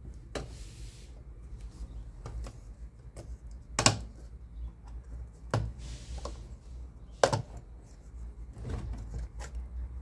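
Washing machine parts being handled and fitted by hand: scattered clicks and light knocks of metal and plastic pieces, with three sharper knocks about four, five and a half and seven seconds in.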